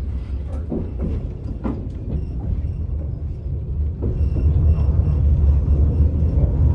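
Passenger train running on the rails: a steady low rumble with a few short knocks early on. It grows louder about four seconds in, with a faint high thin tone over it.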